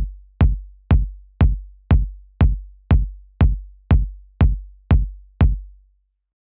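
Electronic kick drum beating steadily, about two deep beats a second with nothing else over it, then stopping near the end.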